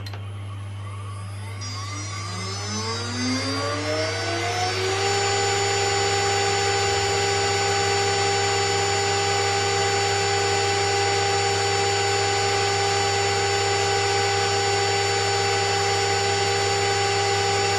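2.2 kW water-cooled high-frequency CNC spindle, driven by a VFD, spinning up with a rising whine about two seconds in and settling around five seconds in into a steady high whine at 24,000 RPM. Beneath it runs the steady hum and blowing of the VFD's cooling fan.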